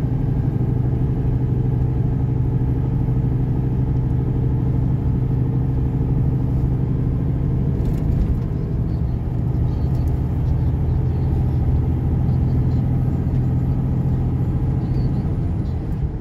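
Heavy truck's diesel engine running at a steady drone, heard from inside the cab, over low road rumble.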